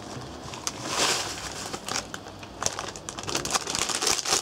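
Plastic instant-noodle packet crinkling and rustling in hands as the noodles are taken out, in several irregular bursts with a few sharp crackles, the loudest about a second in.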